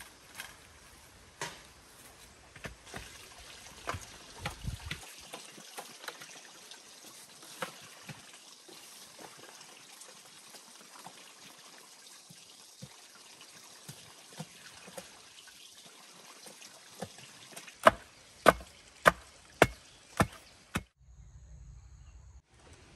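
Scattered sharp knocks of hand-tool work, then a run of loud, evenly spaced blows about twice a second, which fit chopping or hammering on bamboo. The blows stop suddenly near the end, giving way to a low hum.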